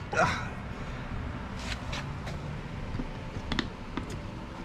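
Hands handling and fiddling with small metal parts on an opened Sea-Doo cylinder head: light rustling with a handful of short, sharp clicks and ticks scattered through.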